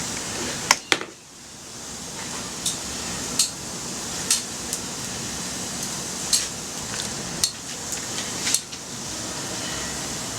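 Wood fire of slightly damp wood crackling, with sharp pops every second or so at uneven intervals over a steady hiss; the hiss dips briefly about a second in.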